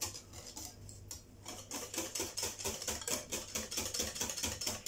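Crêpe batter being stirred briskly in a glass bowl, the utensil clicking against the bowl several times a second; the batter has just been thinned with a little milk.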